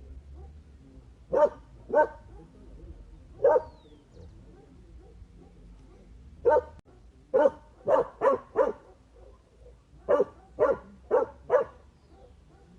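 A dog barking, about a dozen short barks. The first few are spaced out, then come two quick runs of four.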